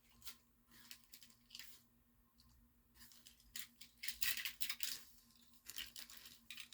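Plastic packaging rustling and crinkling in irregular bursts as loose diecast toy cars are handled, loudest about four seconds in.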